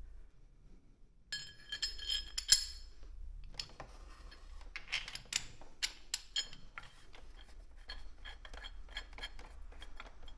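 Metal hand tools and bolts clinking and clicking. A cluster of ringing metal-on-metal clinks comes about a second and a half in, followed by a long run of small clicks and knocks as the tools are handled.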